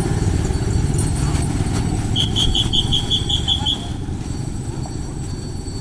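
Motorcycle ride: a steady low engine and wind rumble, with a quick run of about nine short, high chirps a little past the middle. The rumble drops slightly in level near the end.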